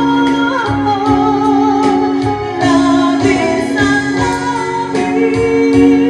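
A woman singing live into a handheld microphone, backed by electric guitar and a steady beat of about two strokes a second.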